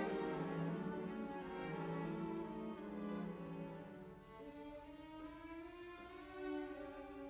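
Background music: slow bowed strings, violin and cello, with sustained notes that fade somewhat in the second half.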